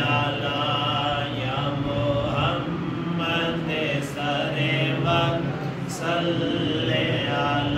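A man's voice chanting a slow, melodic religious recitation, with long held notes that waver in pitch and only short breaks between phrases.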